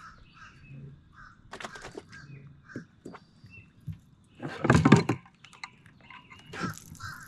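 Birds calling in short repeated calls, with one loud thump about four and a half seconds in.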